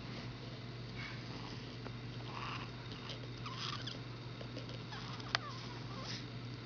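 Snoring in uneven, breathy breaths over a steady low hum, with a single sharp click about five seconds in.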